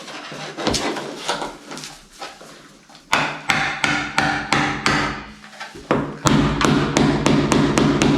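Hammer knocking laminate floorboards into place: a series of sharp knocks, coming faster, about three or four a second, in the second half. About six seconds in, a steady hum starts under the knocks.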